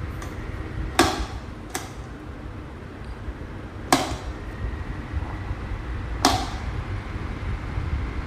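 Trio 12-inch table fan running, a steady low rush of air, with four sharp clicks over it: about a second in, just under two seconds in, about four seconds in, and just past six seconds.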